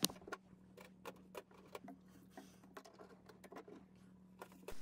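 Faint, irregular light clicks and taps of a plywood backing board and metal backing hardware being handled and fitted onto protruding bolts, over a low steady hum.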